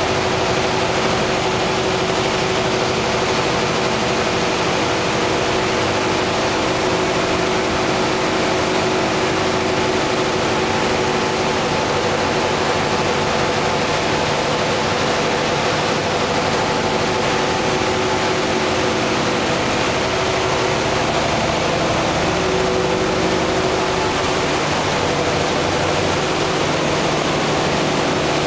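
Steady machinery hum: several held tones over a constant loud hiss, with no breaks.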